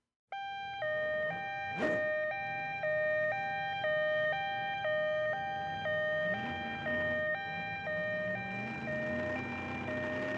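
Two-tone ambulance siren, a high and a low note alternating about once a second each, steady throughout, with a brief swish about two seconds in.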